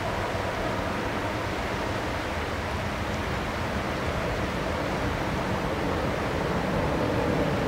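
Boeing 767-300's twin turbofan engines at climb power, heard from the ground as a steady rumbling jet noise while the airliner climbs away, growing slightly louder near the end.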